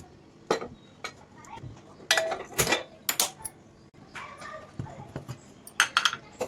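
Metal cooking utensils clinking and knocking against a pan or dish in a series of sharp, separate strikes, with a couple of brief pitched sounds a little after two seconds and about four seconds in.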